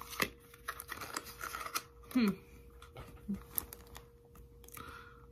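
Faint handling sounds: scattered light clicks and rustles as a plastic spray bottle is handled near the face, with a brief hum of the voice about two seconds in, over a faint steady hum.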